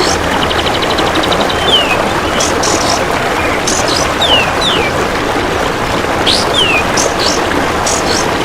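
Belalang emas insect and kapas tembak bird calls mixed for song training. A fast train of high ticks, about a dozen a second, ends in a short falling whistle near the start and again at the end. Sharp high chirps and short falling whistles come between, over a steady rushing background.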